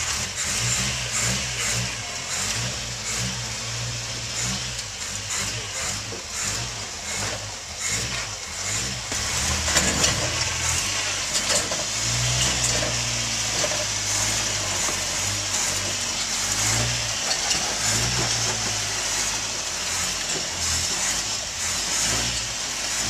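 Rock crawler buggy's engine revving up and dropping back in repeated bursts as it crawls over boulders. A few sharp knocks come through, the loudest about ten seconds in.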